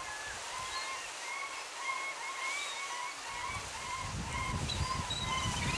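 Rushing water at a small falls, with birds calling over it in a string of short, repeated notes. A low rumble comes in about halfway through.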